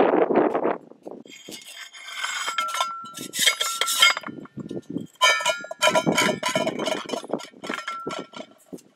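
Titanium Snow Peak Trek 700 mug knocked and tapped as the baked bread is worked loose from it: a run of metallic clinks with a ringing, bell-like tone, in two bouts.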